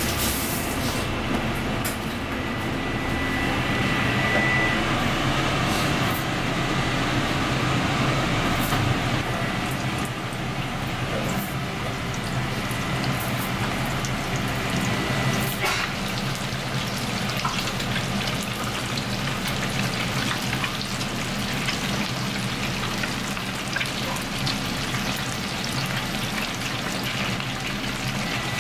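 Flour-dredged fish pieces deep-frying in a commercial fryer: steady sizzling and bubbling of hot oil, with fine crackling that grows denser about halfway through, over a low steady hum.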